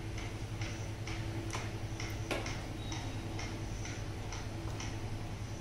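Black plastic ladle stirring thick curry gravy in a pan, ticking and scraping against the pan at an uneven pace. A steady low hum runs underneath.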